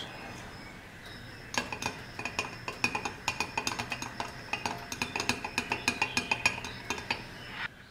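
A metal screwdriver shaft clinks quickly and irregularly against the inside of a glass measuring cup as glitter flake is stirred into melted plastisol. The clinking starts about a second and a half in and stops just before the end.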